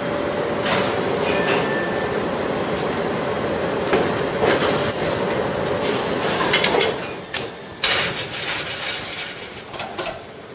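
Rhaetian Railway train running at a station, a steady rumble with a faint held whine, which drops away about seven seconds in; a few sharp knocks follow.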